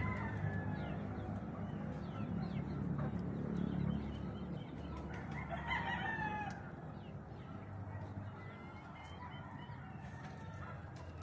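Native rooster crowing once, a pitched call of about a second and a half, roughly five seconds in, over a steady low hum.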